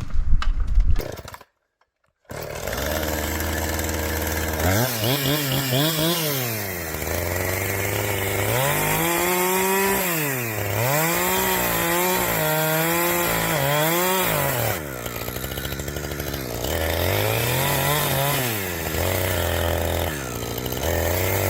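Chainsaw engine revved up and down again and again, the pitch climbing to high speed and dropping back toward idle every second or two. It starts after a brief silence about two seconds in.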